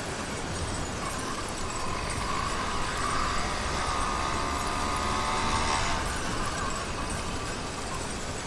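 Motorized bicycle's YD100 two-stroke engine running under way. Its buzz rises about a second in, holds strongest in the middle, and falls off suddenly about six seconds in as the throttle is let off.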